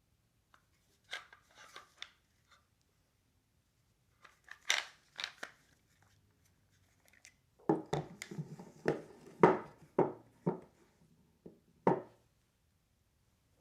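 Pistols being handled on a tabletop: scattered clicks and sharp knocks of the guns being picked up, turned and set down, louder and more frequent from about eight seconds in.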